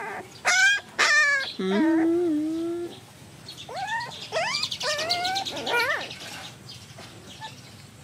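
Young puppies whining with short, high-pitched cries: a run of them in the first three seconds, a second run of rising cries about halfway through, then only faint sounds near the end.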